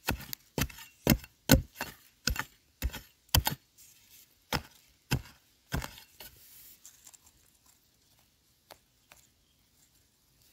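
A metal digging blade chopping repeatedly into hard, dry soil while digging out a wild yam tuber, about two strikes a second. The strikes stop about six seconds in, leaving only a couple of faint knocks.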